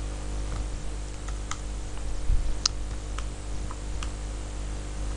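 Computer keyboard keys being typed one at a time, a slow, uneven run of about eight clicks, over a low steady hum.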